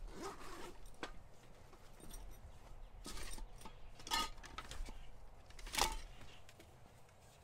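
Rustling, scraping and light clinks of hands rummaging through a duffel bag. There are a few louder knocks and scrapes about four and six seconds in.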